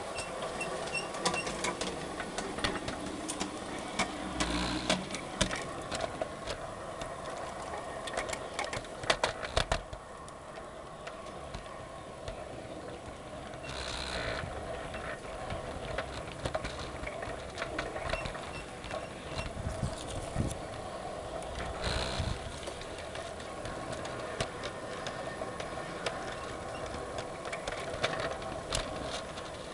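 Garden-scale model train's small electric motor and gearbox running with a steady whine, the wheels clicking irregularly on the track, with a few louder clatters.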